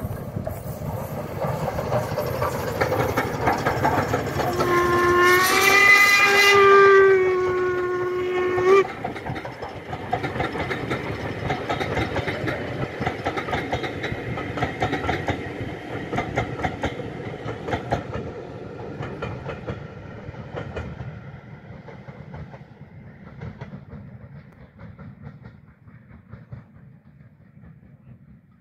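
Royal Scot steam locomotive hauling a passenger train past. Its whistle sounds once for about four seconds, starting about five seconds in, over the steady rumble and clatter of the engine and carriages on the track, which then fade into the distance.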